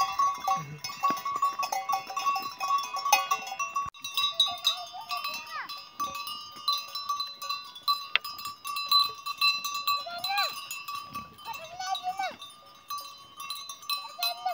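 A flock of sheep with bells: metal bells clank and ring continuously while sheep bleat several times, starting about a third of the way in.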